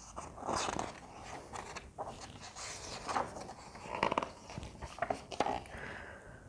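Pages of a hardcover picture book being turned and handled: a run of soft paper rustles and small taps as a page is lifted, turned over and smoothed flat.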